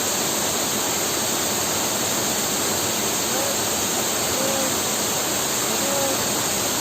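Waterfall pouring into its plunge pool, a steady, even rush of falling water.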